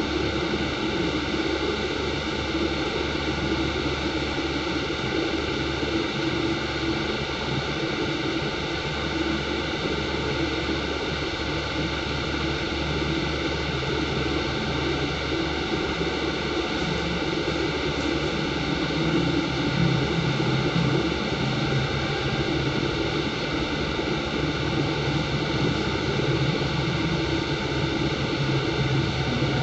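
Steady, loud whooshing machine noise with a constant hum and no breaks.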